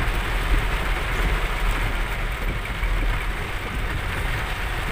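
Heavy rain beating on a car's roof and windscreen over steady engine and tyre noise on a wet road, heard from inside the cabin, with a strong low rumble throughout.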